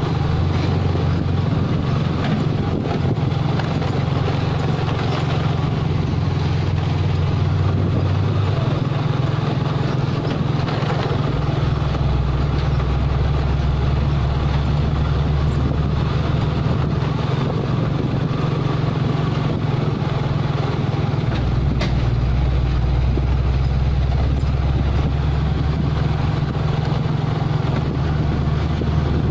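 Diesel engine of a Mitsubishi Fuso self-loader truck running steadily as it drives slowly along a dirt road loaded with an excavator. Its low note steps down twice, near the start and about two-thirds through, over a haze of tyre and wind noise.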